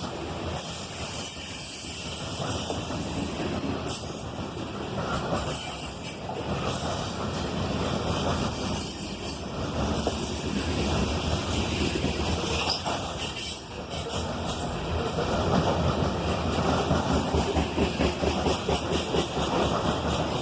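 Loaded Canadian Pacific grain train rolling past, a steady rumble and clatter of its wheels on the rails that grows louder in the second half.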